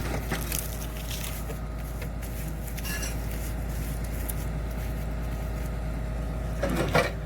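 Heavy diesel engine running steadily, with a few light metal clinks and a short clatter of metal-on-metal knocks near the end.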